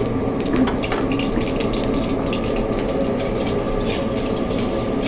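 Steady rushing hum of a gas wok burner station, with faint scattered crackles of cooking oil heating in the wok.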